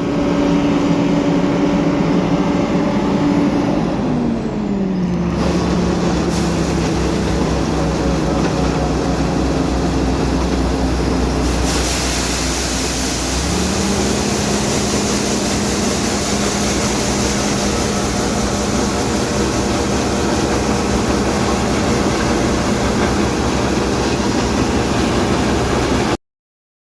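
Farm tractor engine running steadily under load. Its revs drop about four seconds in, then pick back up around thirteen seconds, and the sound cuts off abruptly near the end.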